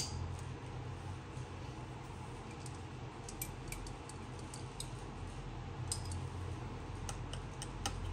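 Scattered light clicks and taps of fingers handling an opened iPhone 7's screen and frame, over a steady low hum.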